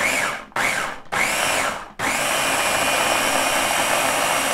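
Ninja food processor blending a poblano, cream cheese and milk sauce. It is pulsed three times in quick succession, each burst spinning up and down, then runs continuously with a steady high motor whine.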